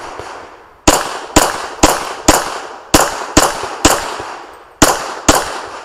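Semi-automatic pistol fired nine times in a rapid string at close range, about half a second between shots, with a pause of about a second before the last two.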